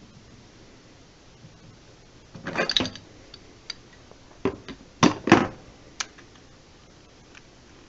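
Metal clanks and rattles from a pipe wrench and plumbing fittings being handled during a water heater relief-valve swap: a short scraping rattle, then a handful of sharp knocks.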